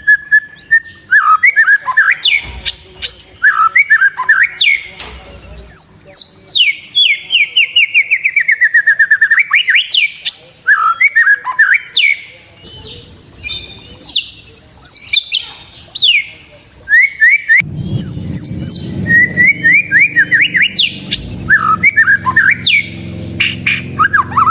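White-rumped shama (murai batu) singing a fast, varied song of whistled notes, sharp down-slurred calls and a long falling trill, with hardly a pause. A steady low hum joins about three-quarters of the way through.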